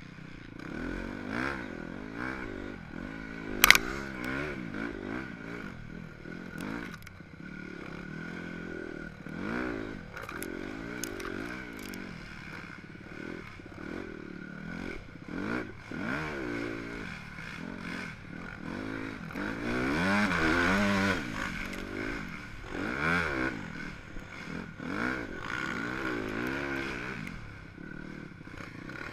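Dirt bike engine revving up and down as it is ridden hard over a sandy track, its pitch rising and falling many times. One sharp knock about four seconds in is the loudest sound.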